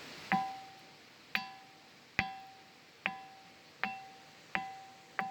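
The Batu Sada ringing stone being struck over and over, seven times and slightly faster toward the end. Each strike gives a sharp knock, then a clear bell-like tone at the same pitch that fades quickly.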